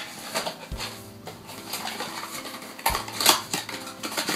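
Cardboard packaging handled and pulled out of a product box: rustling, scraping and a few short knocks, the loudest pair about three seconds in.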